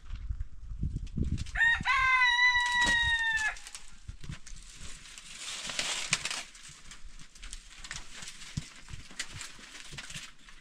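A rooster crowing once: one long call of about two seconds, starting about a second and a half in, level and then dropping slightly at the end. A few seconds later there is a rustle, with light knocks here and there.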